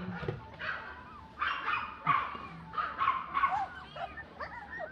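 Puppies yapping: a run of short, high-pitched yips with a few whines in between, loudest around the middle.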